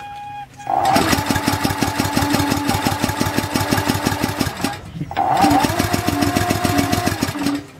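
Small OHV petrol engine running on isopropyl rubbing alcohol being cranked over twice, first for about four seconds and then for about two and a half, as a fast even run of pulses with a steady whine. It does not catch: the engine won't run on the alcohol.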